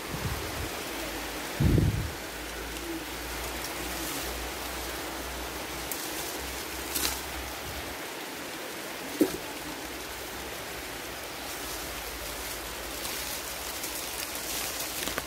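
Sapodilla branches and leaves rustling and a handheld phone bumping about as someone moves in the tree picking fruit, over a steady rushing hiss. A dull thump comes about two seconds in, with a couple of light knocks later.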